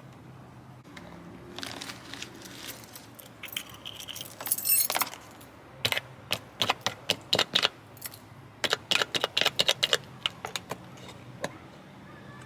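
Small metal objects jingling and clinking in quick, irregular clusters of sharp ticks, with the loudest runs in the middle and later part.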